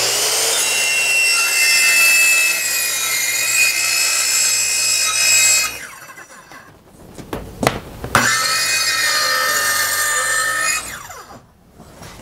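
Handheld circular saw cutting along a long sheet panel, its motor whining steadily under load. It stops about six seconds in, with a few knocks in the pause. It starts cutting again about two seconds later and winds down near the end.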